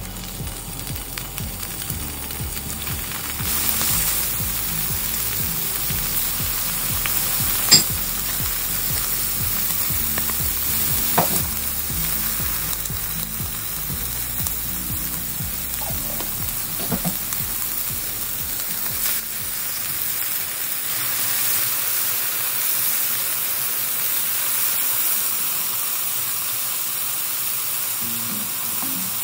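Cubes of chicken breast sizzling steadily as they sear in hot oil in a pan, with a couple of sharp clicks.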